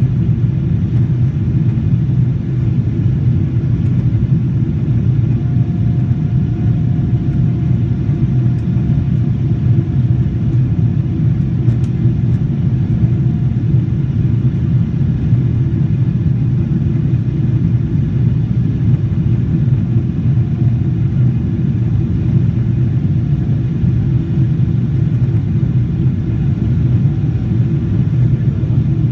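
Steady, loud engine and airflow noise inside the cabin of a Boeing 777-300ER, from its GE90-115B turbofans, heard from a seat toward the rear of the aircraft. A faint steady tone sits above it for several seconds in the first half.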